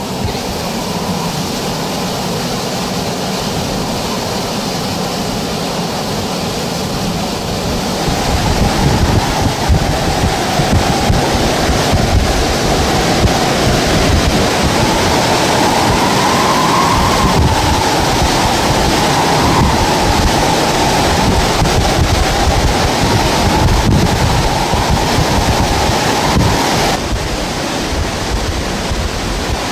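Hurricane winds and driving rain rushing over the microphone, with a steady whistling tone in the wind that comes in about eight seconds in and stops near the end.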